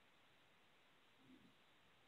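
Near silence: faint room tone, with one faint, brief, low sound a little past halfway.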